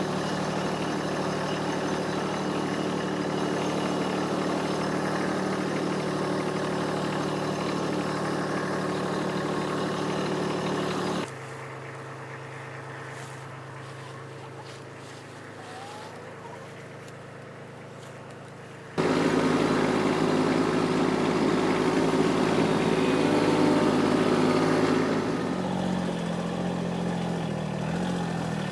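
Small farm utility vehicle engine running steadily. The sound is cut into three pieces, with a noticeably quieter stretch in the middle third.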